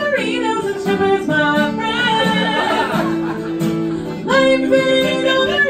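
Acoustic guitar playing chords in a live song, with a woman singing along.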